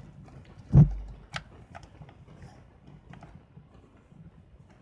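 Handling noise from a Canon Autoboy Epo compact film camera as a CR123A battery is pushed into its battery compartment: one dull thump just under a second in, then a sharp plastic click and a few lighter clicks.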